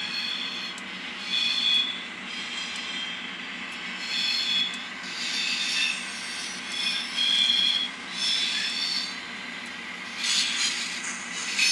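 Digital sound of an MP15 diesel switcher played from a LokSound Micro decoder through a tiny cube speaker in an N scale model locomotive: a steady engine hum with short high-pitched squeals repeating about every second, and a hissing burst near the end.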